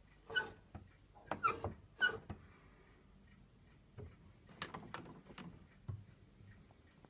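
Short squeaks, several in the first couple of seconds, then fainter clicks and knocks from a George Woods reed organ's wooden knee lever being pushed by hand; no notes sound.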